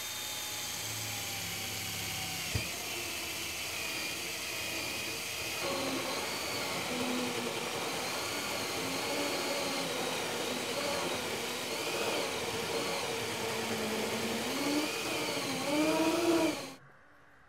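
19.2-volt cordless drill whining, its pitch rising and falling as the trigger is worked, while it drives into the top of a roof-mounted LED light bar. There is a single sharp knock about two and a half seconds in, and the drill is loudest just before it stops abruptly.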